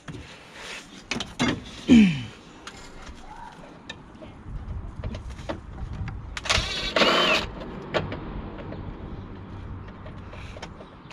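Cordless power driver whirring in one short burst about six and a half seconds in, backing out a screw holding a car's fog light, amid small clicks and handling sounds.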